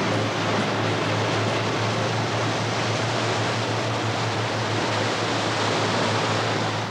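A boat running at speed through the sea: a steady rush of water and wind with a low, even engine drone underneath.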